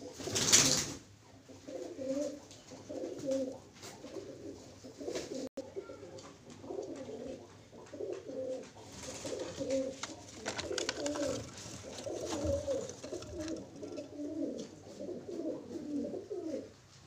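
Domestic pigeons cooing over and over, a steady run of low, warbling coos. A brief loud burst of noise comes about half a second in.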